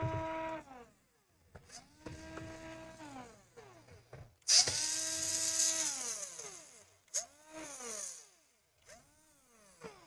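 Cordless electric screwdriver driving the laptop's case screws in four short runs, its motor whine rising in pitch at each start and falling away as it stops; the third run, from about four and a half seconds in, is the longest and loudest.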